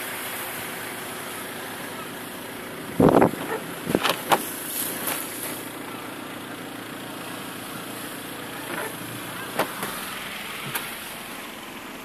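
Steady rush of wind and surf heard muffled through the closed window of a parked vehicle, broken by a few short loud knocks about three and four seconds in and fainter ones near ten seconds.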